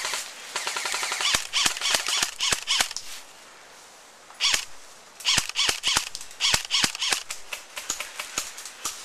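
Airsoft rifles firing quick strings of shots: one spell over the first three seconds, a short pause, then another from about four and a half seconds in until near the end.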